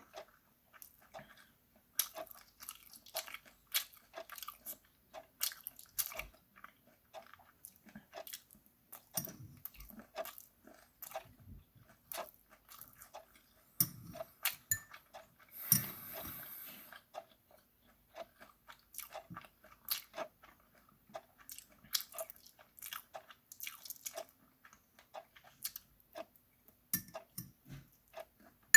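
Close-up chewing and crunching of charcoal-grilled chicken feet over rice, made up of many small sharp crunches at an uneven pace. About halfway through there is a brief, louder noisy rasp.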